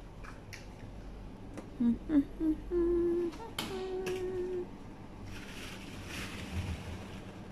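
A person hums a few short notes that step upward, then two longer held notes. Scattered light clicks and knocks come through the humming, and a brief rustling follows near the end.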